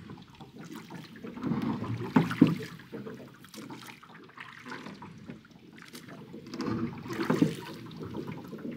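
Slow oar strokes of a small rowing boat: water swishing and splashing with each pull, the strokes a few seconds apart, with a sharp knock about two and a half seconds in.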